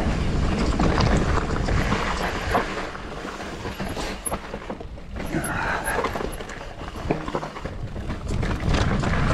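Wind rushing over the microphone while a mountain bike rides a rough trail, its frame and parts rattling with scattered clicks and knocks; the noise eases for a few seconds in the middle.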